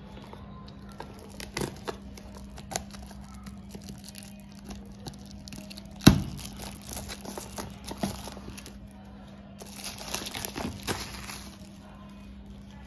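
Plastic shrink-wrap on a small cardboard box crinkling and tearing as it is handled and peeled open: scattered crackles, a sharp snap about six seconds in, and a denser stretch of crinkling near the end.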